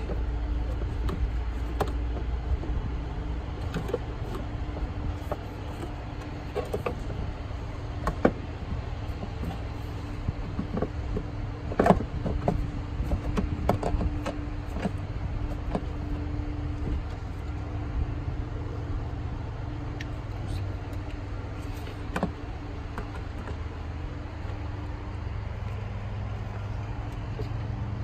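Plastic engine cover of an F-150 EcoBoost being handled and pressed back onto its mounts: scattered clicks and knocks, the loudest about eight and twelve seconds in, over a steady low background rumble.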